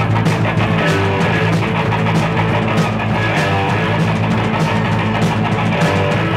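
Live punk rock band playing an instrumental passage: electric bass, electric guitar and drum kit with cymbals.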